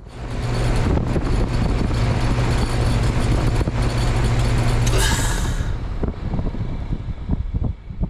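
Goodman heat pump outdoor unit going into defrost: a sudden loud rush of refrigerant over a steady compressor hum, as the reversing valve shifts over. The hiss dies away about five to six seconds in, leaving the compressor's lower rumble.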